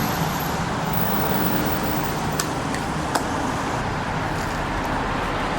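Steady road traffic noise, with two short clicks about two and a half and three seconds in.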